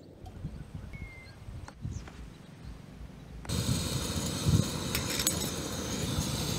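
A faint low rumble, then about three and a half seconds in, the steady hiss of a gas canister camp stove burning under a steel pot.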